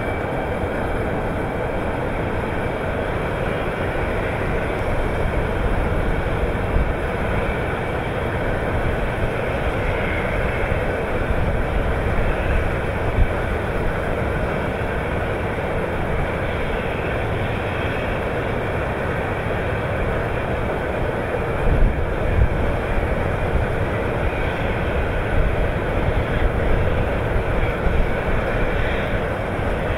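Heavy rail-mounted ore-handling machinery running, a stacker-reclaimer and its conveyors: a steady mechanical rumble and clatter, with a few sharper knocks now and then.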